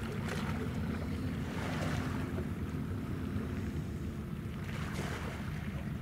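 Harbour ambience around a warship: a steady low rumble with water washing and wind buffeting the microphone, with no whistle blast.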